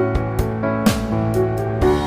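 Background music with a steady beat: sustained instrumental notes with a percussive hit roughly once a second.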